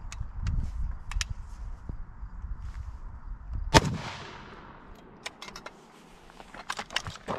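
A single 7.62x39 rifle shot from a 16-inch-barrel AKM fired at point blank, a little over halfway through, with a short echo dying away after it.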